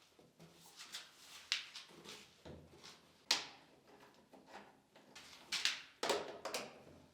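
Irregular knocks, clicks and scraping of hard objects being handled, with the strongest knocks about three seconds in and again near the end.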